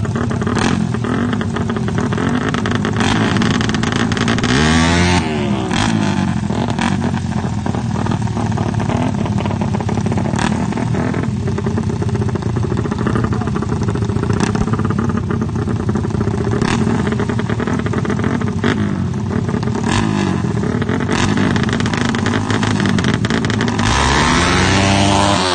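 Two small motorcycle engines running at a drag-race start line, blipped and revved over and over. The pitch sweeps up sharply about five seconds in and again near the end as the engines are revved hard.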